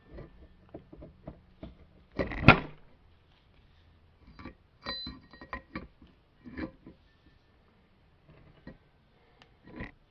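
Irregular clinks and knocks of steel parts being handled as a front axle-shaft yoke is fitted onto a U-joint cross, with one loud knock about two and a half seconds in and a few short ringing clinks around five seconds in.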